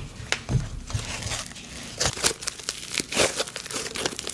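Hands working a thick snow butter slime dough, giving a run of crackly, sizzly pops and squishes that come thicker and faster about halfway through.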